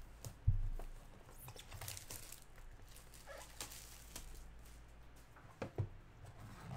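A sealed box of baseball cards being handled and opened with gloved hands: a thump about half a second in, then light rustling and crinkling of the cardboard and wrapping.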